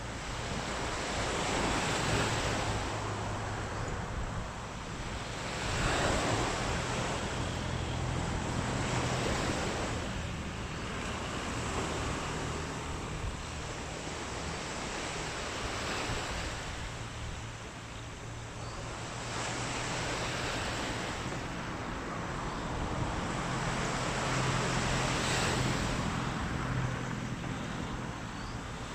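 Sea waves washing onto a beach, each wave swelling and fading every four to five seconds, over a steady low rumble.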